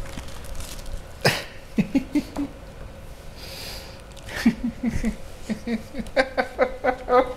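Puppies playing on a person's face and chest: snuffling and snorting breaths with a couple of sharp knocks and short grunting sounds. A quick run of short, high vocal sounds comes in the last second or so.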